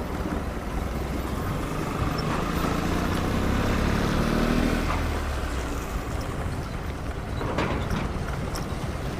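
A motor vehicle passing close by, its engine note rising and growing louder to a peak about four to five seconds in, then fading away, over steady low traffic rumble.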